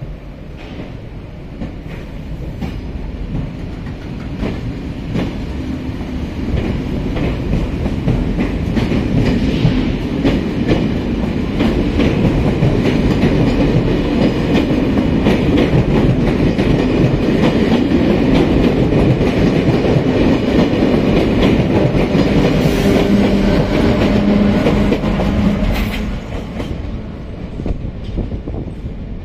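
Departing TER 200 train rolling past at low speed, pushed by a BB 26000 (Sybic) electric locomotive: steel wheels clicking over rail joints, growing louder over the first ten seconds as the coaches go by. A low hum joins as the locomotive at the rear passes, and the level drops a few seconds before the end as it moves away.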